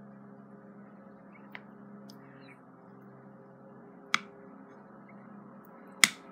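Sticky sanitizer slime being kneaded with the fingers in a plastic bowl, giving a faint click and then two sharp pops or clicks, the last the loudest, over a steady background drone.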